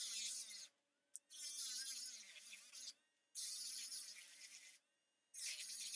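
Kiss Power File Deluxe rechargeable electric nail file with the pointed detail bit, whining and grinding against a fingernail in four bursts of up to about a second and a half, its pitch wavering.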